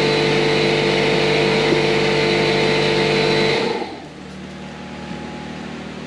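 Shop air compressor motor running steadily, then shutting off about three and a half seconds in, leaving a quieter background hum.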